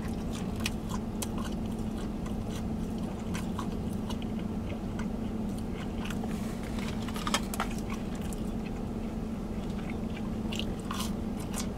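A person chewing food close to the microphone, with scattered wet mouth clicks, over a steady low hum.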